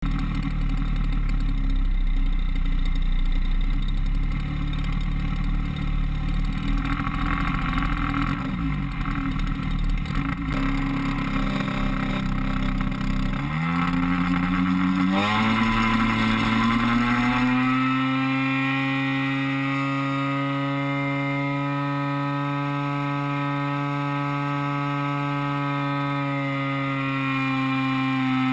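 Single-cylinder DLE-30 two-stroke gas engine of an RC floatplane, heard close from on board. It runs low and rough at first, then throttles up about halfway through with its pitch rising steeply, and settles into a steady high drone for the takeoff and climb.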